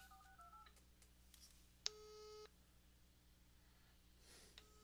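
Faint phone call tones from a VoIP call being placed in the Nimbuzz app on an iPhone as it connects: a few quick tones at the start, then a beeping call tone sounding twice, each beep short and opening with a click, about two and a half seconds apart.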